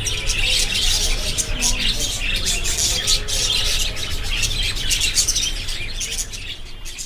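Budgerigars chattering, a continuous busy stream of short high chirps and warbles.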